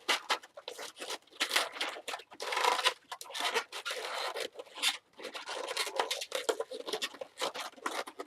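Latex 260 twisting balloons being worked by hand, rubbing against each other in rapid, irregular strokes as a hand segment is twisted and locked into an ear twist.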